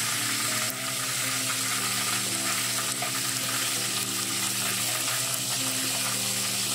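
Battered chicken and shiso pieces (toriten) deep-frying in hot oil in a small pan: a steady sizzle with fine crackling.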